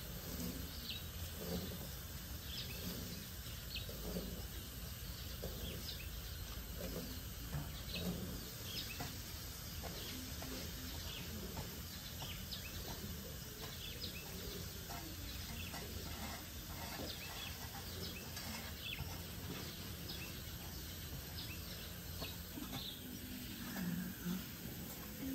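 Outdoor ambience: birds chirping now and then over a steady low rumble, with occasional scrapes of a garden spade on dry, sandy soil.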